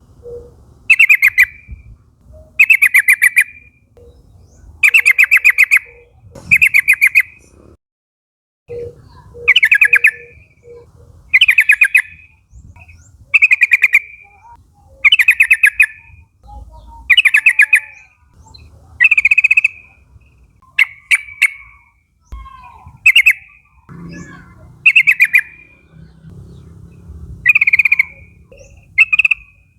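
Yellow-vented bulbul (trucukan) calling: a short burst of rapid chattering notes about every two seconds. Near the end come sharper single notes and briefer bursts. This is a lure call used to set other bulbuls singing.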